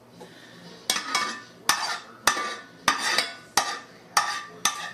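A utensil scooping browned ground beef out of a frying pan, knocking against the metal pans in about nine sharp clinks roughly every half second, each with a brief ring.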